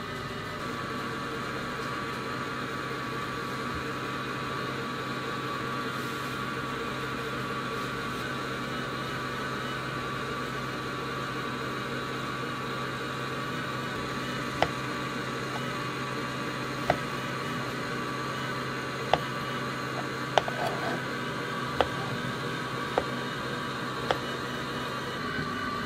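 A kitchen knife chopping down onto a cutting board as mango flesh is diced: sharp single taps about a second apart, starting a little over halfway through. Underneath is a steady hum of kitchen machinery.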